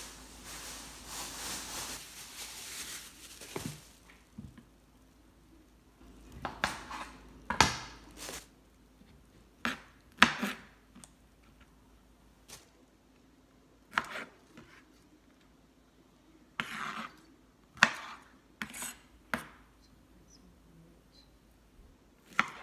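Kitchen knife chopping on a cutting board in scattered single strokes and knocks, not a steady rhythm. A steady hiss runs for the first few seconds before the chops begin.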